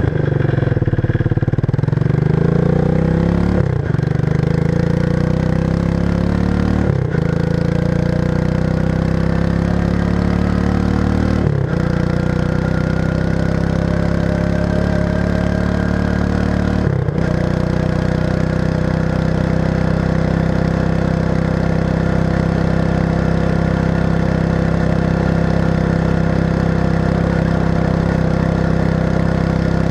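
Exhaust of a 1994 Suzuki King Quad 300's single-cylinder four-stroke engine, run through a stock muffler with its baffles removed and its inside modified. The engine speed climbs in steps, with four brief dips between them, then holds steady for the second half.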